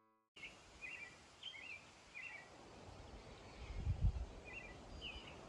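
A songbird calling over and over in short chirpy phrases against a steady outdoor hiss, with wind gusting on the microphone, loudest about four seconds in.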